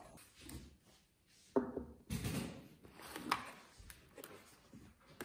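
Light, scattered knocks and taps of unboxing: small cardboard accessory boxes and parts being handled and set down on a countertop, with the packaging moved about.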